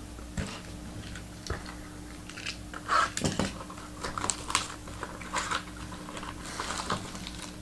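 Scattered light clicks and taps, irregular and a little louder about three seconds in, over a faint steady low hum.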